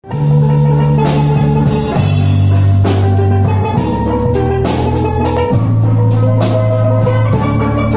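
Steel band playing: struck steel pans carry the melody over a bass guitar and a drum kit beat, the deep bass line changing note every second or two.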